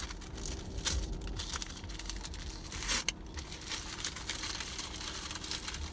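Crinkly wrapping being pulled open by hand, rustling and crackling continuously, with two sharper crackles about a second in and near three seconds.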